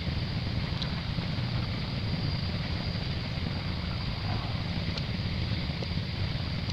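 Steady low rumble and hiss of wind buffeting the microphone outdoors, with a couple of faint ticks.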